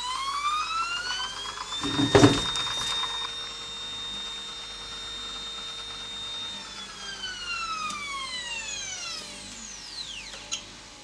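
Ultimaker 2+ feeder stepper motor whining as it drives filament through the Bowden tube at speed: the pitch rises, holds steady for a few seconds, then falls away as the motor slows to a stop. A loud knock comes about two seconds in, and a small click near the end.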